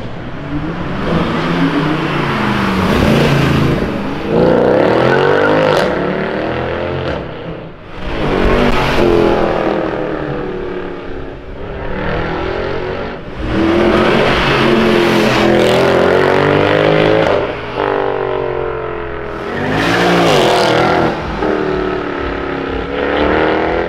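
Mercedes-Benz C63 AMGs with their 6.2-litre naturally aspirated V8s accelerating hard past one after another, about four loud pulls. In each, the exhaust note rises in pitch and drops back before climbing again.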